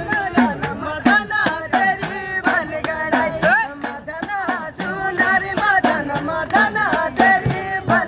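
Masakbeen (Kumaoni bagpipe) playing a bending, ornamented melody over dhol and damau drums beating a steady rhythm, about three strokes a second: chholiya band music.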